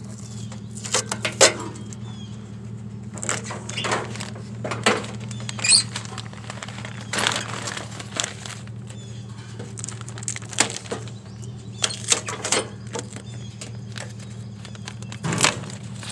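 Stiff paper bag and paper wrapping rustling and crinkling in irregular bursts as duct tape is peeled and the paper pulled away, over a steady low engine hum.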